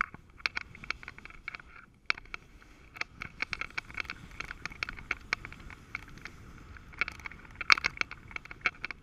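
Snowboard sliding down hard-packed snow: a steady scraping rush of the board over the snow, broken by many irregular sharp clicks and knocks, densest about three-quarters of the way in.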